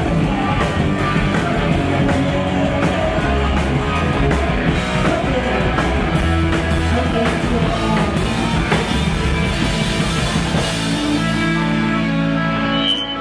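Punk rock band playing live, with drums and electric guitar. About ten and a half seconds in, the drum hits drop away and held guitar and bass notes ring on.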